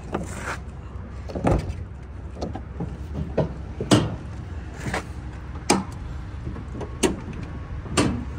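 Clunks and knocks of a heavy International truck's tilt hood being unlatched and swung forward, about eight separate knocks a second or so apart, over a steady low rumble.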